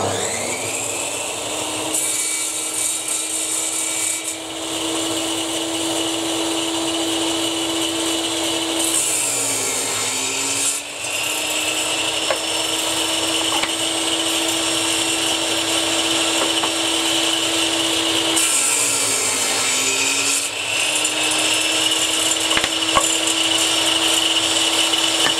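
Table saw starting up and running steadily, its motor note sagging twice, about ten seconds apart, as the blade bogs down cutting through wooden boards pushed through on a crosscut sled, then recovering.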